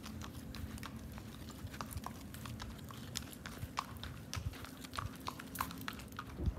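Horse hooves clip-clopping at a walk on asphalt: light, irregular clicks over a faint steady low hum.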